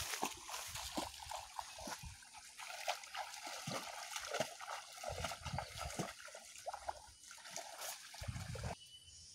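Legs wading through shallow, muddy swamp water: irregular splashing and sloshing with each step. It stops abruptly near the end.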